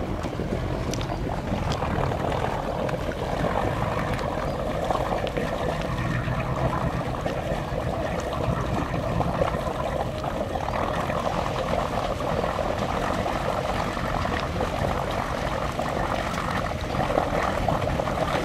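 Boat engine running steadily at slow speed, with water churning and sloshing.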